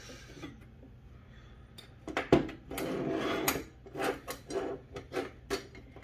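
Handling of a Ludwig Speed King bass drum pedal's cast-aluminium footboard and heel hinge on a wooden table: a sharp knock about two seconds in, then a stretch of scraping and a run of light knocks as the pedal is shifted and set down.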